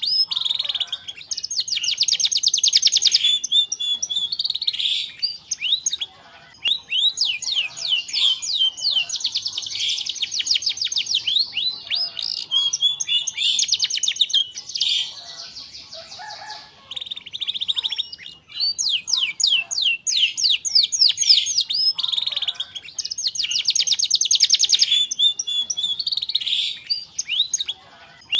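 Domestic canary in full song: long phrases of fast rattling trills and quick sweeping notes, broken by short pauses of a second or so.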